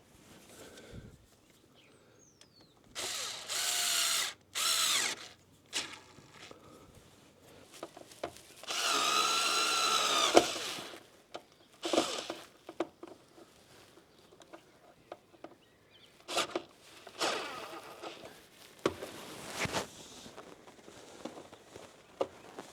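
Small power drill-driver whirring in short runs, the longest one near the middle sagging in pitch as it stops, driving in the radiator guard's mounting bolts; brief clicks and knocks of the parts being handled follow.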